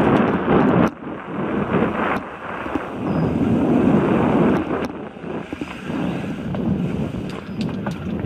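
Wind buffeting a helmet-camera microphone on a fast mountain-bike ride over a dirt singletrack, a loud rushing noise that swells and dips. Scattered sharp clicks and rattles from the 29er hardtail bike and its tyres running over bumps sound through it.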